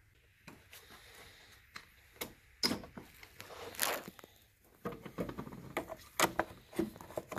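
Scattered metal clicks and knocks, sparse at first and coming thicker in the second half: a socket ratchet being fitted to and worked on a car battery terminal nut.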